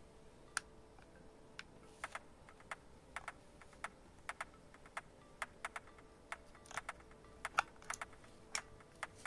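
Small sharp clicks and taps, irregular at about two or three a second, from hands handling a Canon F-1 film camera body and its Data Back F.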